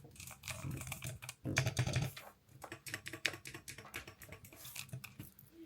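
Yunzii cat mechanical keyboard being typed on, a quick run of key presses with a deeper, thocky sound. After a brief pause come lighter, scattered keystrokes.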